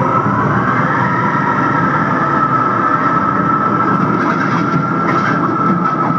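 Recorded storm-wind sound effect for the cyclone: a steady rushing roar with a high whistling tone that rises slightly in the first second and then holds.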